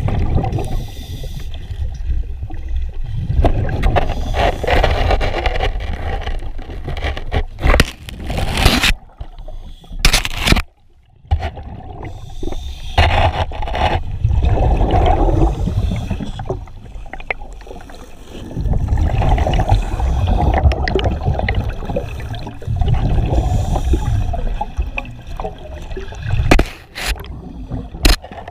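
Irregular scraping and knocking with gurgling water as a cave diver works through a muddy sump, heard close up.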